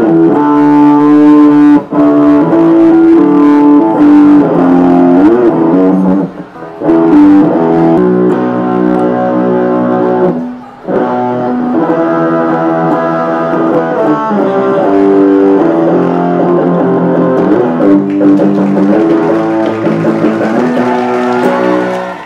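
Yamaha EG112 electric guitar on its bridge pickup, played through an amplifier's distortion channel: a lead line of sustained notes with string bends, broken by a few short pauses.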